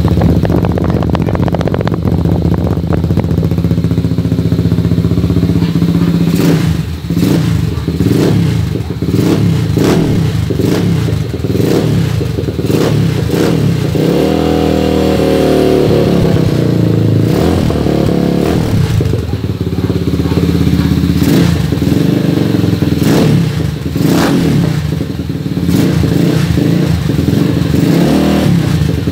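Motorstar Z200 Explorer's single-cylinder engine running through an open Akrapovic-style exhaust with the silencer insert removed. It idles steadily, then from about six seconds in is revved again and again, with sharp crackles and pops between the blips.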